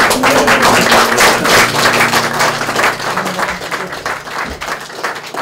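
A small crowd of wedding guests applauding with dense clapping, which thins out over the last couple of seconds.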